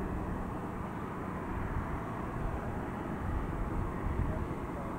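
Steady, distant rumble of an Airbus A321neo's jet engines as it moves along the runway.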